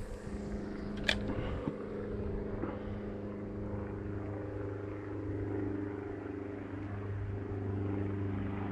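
Steady drone of a light propeller airplane's engine flying over, an even hum with several pitched layers. A single sharp click about a second in.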